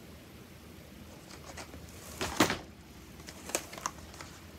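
Rigid clear plastic blister packs of cross-stitch kits being handled and set down: a crackly rustle a little over two seconds in, followed by a few light clicks.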